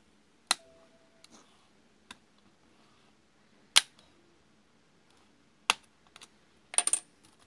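Sharp plastic clicks as a plastic pry tool works under a Dell XPS 13 9343 laptop's space bar keycap and its retaining clips snap loose: single clicks about half a second, four and five and a half seconds in, with fainter ticks between, then a quick rattle of several clicks near the end.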